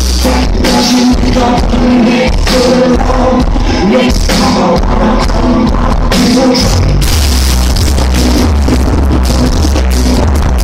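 Indie rock band playing live in a concert hall, heard loud from the crowd: sung vocals over keyboards and drums. A heavy bass comes back in about seven seconds in.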